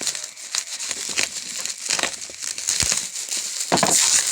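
Plastic packaging wrap crinkling and crackling as it is pulled off by hand, in irregular bursts that are loudest near the end.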